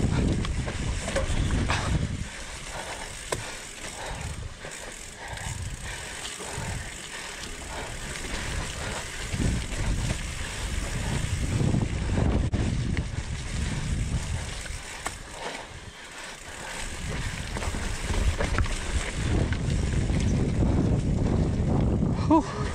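Mountain bike descending a rough dirt trail: tyres rolling over the ground and the bike rattling and knocking over bumps, with wind buffeting the camera microphone.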